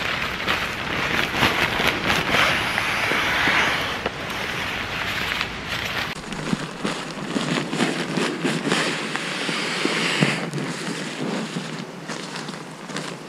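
Nylon pump sack being rolled and squeezed to push air into a sleeping pad: fabric rustling and crinkling with rushing air. About six seconds in it gives way to a duller rustle and crackle.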